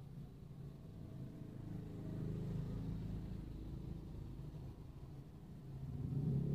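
Motorcycle engines passing close by, swelling and fading, heard from inside a car. The engine sound grows louder again near the end.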